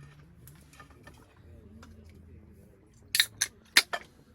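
Four short, sharp clicks of small hard objects knocking together in quick succession a little past three seconds in, over a faint low hum.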